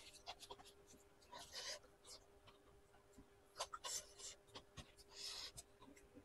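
Faint, close-miked eating sounds from a person eating rice and chicken curry by hand: scattered small mouth clicks and lip smacks, with three short hissy rustles or breaths. A faint steady hum runs underneath.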